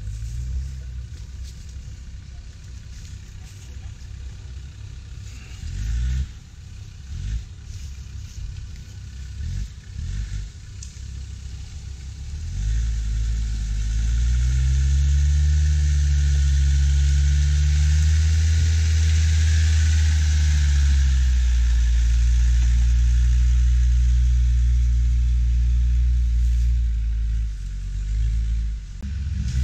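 Off-road 4x4's engine revving hard under load. It starts lower, with a few knocks, then picks up about halfway through, climbing in pitch and holding loud for several seconds with a hiss alongside, and eases off near the end.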